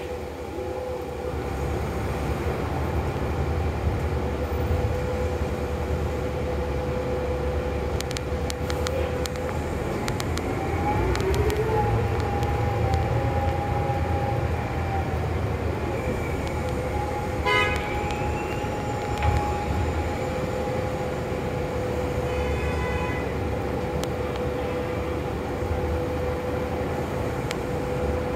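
Cabin noise inside a New Flyer XD40 diesel city bus in stop-and-go traffic: steady low engine and drivetrain rumble under a constant whine, with a brief wavering whine about ten seconds in and a short run of clicks a little past halfway.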